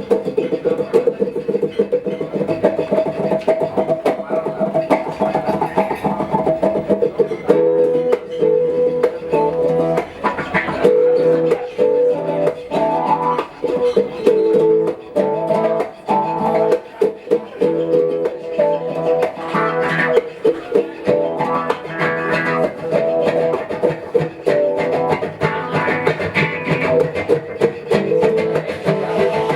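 Guitar music played by a duo, with quick, closely spaced plucked notes over a steady lower line.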